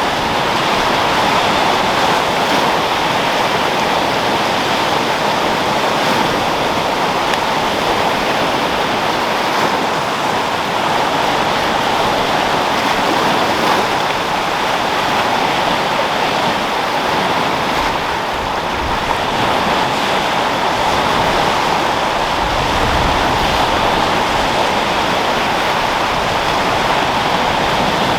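Sea waves rolling and breaking in steady surf, mixed with wind. There are two brief low rumbles of wind on the microphone in the second half.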